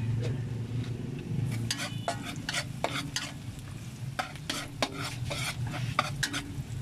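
Metal spatula stirring and scraping chopped onions frying in a wok, sizzling, with irregular clinks of metal on the pan several times a second over a steady low hum.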